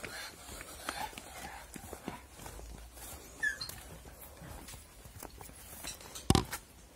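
Footsteps of a small child walking and trotting on a concrete path and dirt, as a run of light scattered taps, with a short chirp about halfway through and one loud thump near the end.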